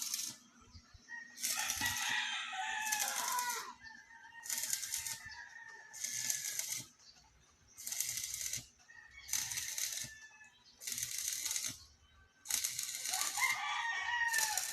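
Rhythmic harsh scraping strokes, about one every one and a half seconds, with a rooster crowing twice, near the start and near the end.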